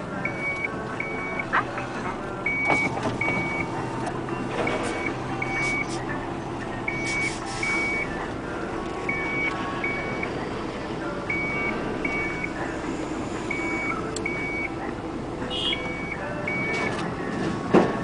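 A machine's warning alarm beeps in high pairs, about one pair every two seconds, over the steady running of diesel engines. A loud knock comes near the end.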